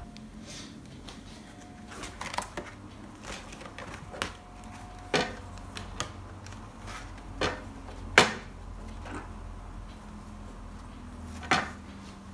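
Scattered sharp clicks and knocks, about half a dozen with the loudest about eight seconds in, as a twin-loop wire spine is threaded onto punched notebook pages and the wire-bound notebook is handled against a desktop wire binding machine.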